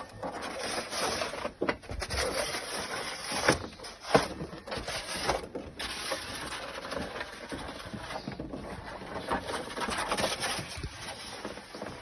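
Snow shovel scraping and pushing through snow: a continuous rough scrape broken by several sharp knocks.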